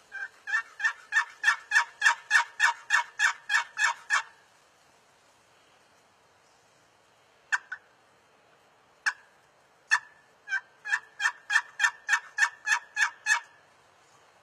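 Turkey yelping: a run of about fifteen evenly spaced yelps, swelling and then fading over four seconds. A few scattered single notes follow, then a second run of about a dozen yelps.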